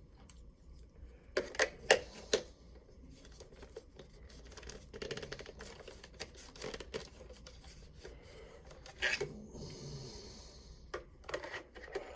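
Plastic clicks and knocks as a rechargeable battery pack is handled in a Dymo label maker's battery compartment, with soft rustling between. There are three sharp clicks in quick succession about a second and a half in, another around nine seconds, and a few more near the end.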